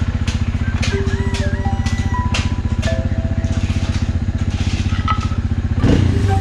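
Motorcycle engine running steadily, with a brief rise in engine note near the end, under background music with a melody and a steady beat.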